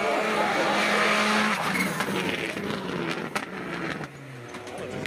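Rally car's engine running hard at a steady note, then dropping in pitch and fading as the car drives away.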